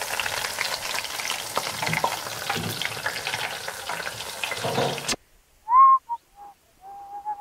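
Batter-coated flower fritters sizzling and crackling in the hot oil of a deep fryer. The sound cuts off abruptly about five seconds in. Near the end come a few short whistle-like calls.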